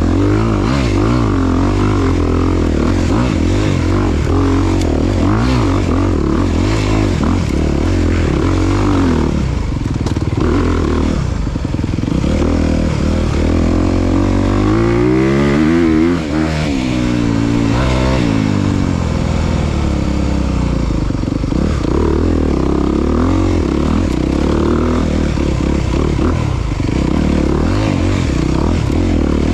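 Dirt bike engine running under hard throttle, its pitch rising and falling as it revs up and down, with a high rev about halfway through.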